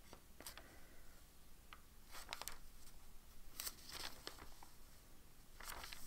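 Thin pages of a Hobonichi Weeks planner rustling and flicking as they are turned by hand, a few short soft rustles.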